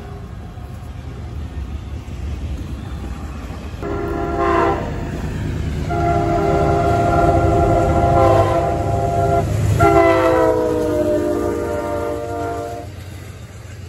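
Diesel locomotive's multi-chime air horn sounding a short blast, then two long ones, over the steady rumble of a passing train. In the last blast the chord drops in pitch as the locomotive goes by.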